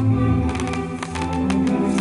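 Orchestral-style music with sustained notes accompanying a fireworks display, with a few scattered firework bangs and crackles over it.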